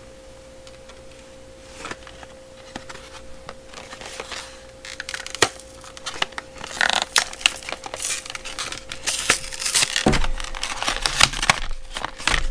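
Hard plastic packaging being handled as screwdriver bit extensions are popped out of it: a few scattered clicks at first, then busier clicking and crinkling of plastic from about halfway. A faint steady hum runs underneath.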